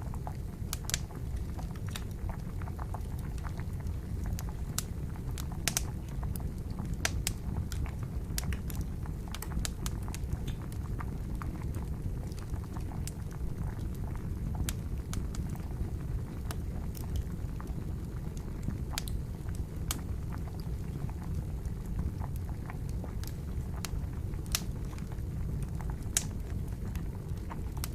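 Wood fire crackling with irregular sharp pops over the steady low bubbling of boiling water.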